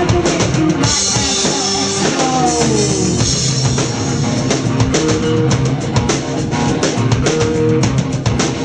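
Live rock band playing an instrumental stretch on drum kit and guitar. A cymbal wash comes in about a second in, and a few notes slide downward a little later.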